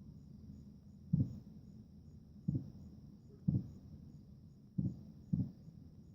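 Distant fireworks shells bursting, heard as five dull low booms at uneven intervals. Insects chirp steadily and high-pitched behind them.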